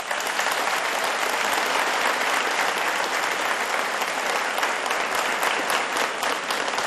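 Audience applauding steadily, a dense wash of many hands clapping at the end of a speech.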